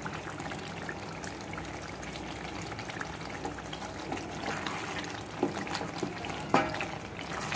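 Thick chicken masala gravy bubbling as it simmers on low heat in a pan, with a spoon stirring through it; two sharper knocks of the spoon stand out near the end.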